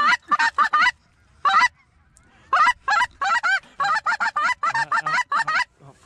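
A hunter's goose call blown in short honks and clucks, in quick runs of notes, with a pause of about a second and a half after the first run and then a fast string of clucks.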